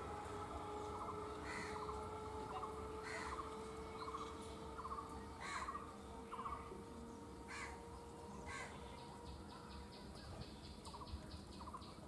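A faint, steady whine from a distant approaching EMU electric train, rising slowly in pitch. Birds call over it several times in short, sharp calls, with faint rapid trills and, near the end, a fast run of ticks.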